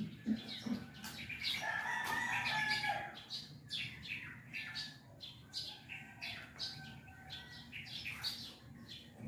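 Small birds chirping in quick, irregular short calls, faint in the background, with one longer held call about two seconds in.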